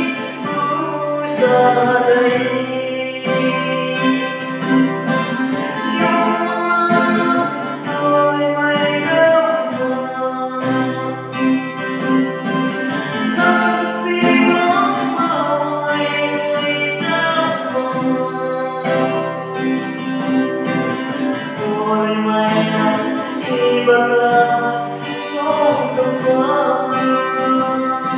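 A man singing to his own strummed acoustic guitar, a steady strumming pattern under the sung melody.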